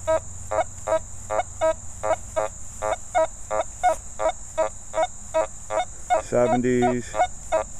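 Nokta Fors Core metal detector giving a rapid string of short, even beeps, about four a second, as it responds to a rusty nail lying on top of a buried dime. A lower, longer tone comes in about six seconds in.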